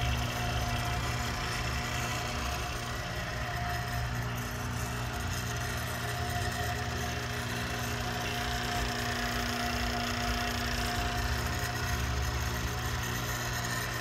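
Roughing vacuum pump running steadily with an even mechanical drone and a low throb, holding the accelerator's vacuum at about 52 microns.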